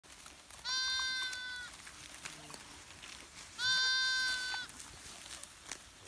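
A lamb bleating twice, each call high-pitched, steady and about a second long, the second coming about three seconds after the first.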